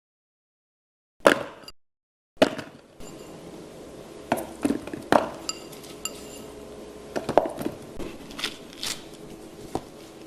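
Lunch box containers and utensils being handled: a series of separate clinks and knocks, some with a brief ring, starting about a second in over a faint steady room hum.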